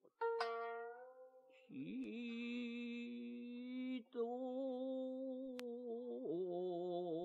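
Slow meditative background music: long held chant-like tones that move to a new note every two seconds or so, with a plucked string note ringing out near the start.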